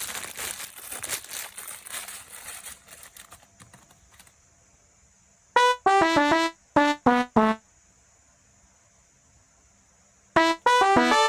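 Packaging crinkling as a box is handled, fading out over the first few seconds. It is followed by short trumpet-like musical phrases: runs of quick notes stepping downward, one burst about halfway through and another near the end.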